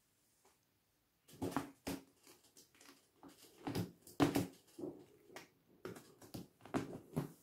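Irregular taps, scuffs and rustles from a Ragdoll cat's paws grabbing at a pencil drawn along a fabric office-chair back, starting about a second in, with a few sharper clicks.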